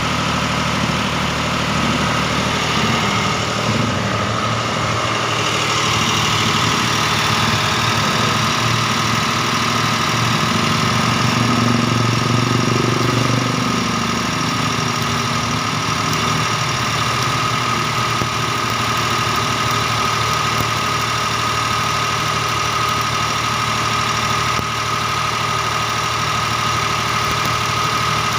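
Engine of a Miller engine-driven welding machine running steadily, with a steady high whine over the engine note; the low hum swells a little about halfway through.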